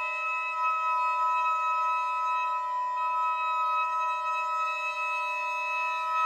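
Viola, saxophone and trumpet holding long, steady high notes together in a static, unchanging chord.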